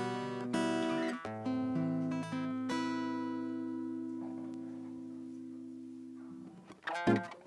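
Acoustic guitar playing a slow song introduction: a few chords, then one chord left ringing and slowly fading for several seconds. A few short knocks sound near the end, just before the playing starts again.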